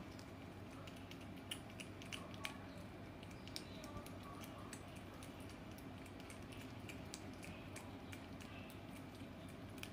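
A cat licking a lickable paste treat from a squeeze tube: a run of small wet clicks and smacks of its tongue, with a few louder ones in the first four seconds.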